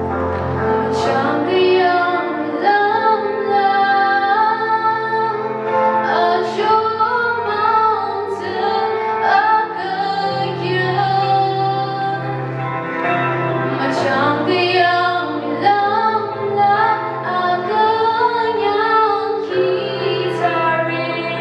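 A woman singing a slow devotional song into a microphone, over long held accompaniment notes.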